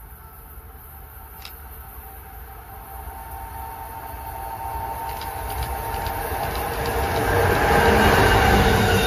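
Amtrak ACS-64 electric locomotive and its coaches approaching at speed on welded rail. The rumble and hiss of wheels on rail grow steadily louder over about seven seconds, then hold loud as the train passes close near the end.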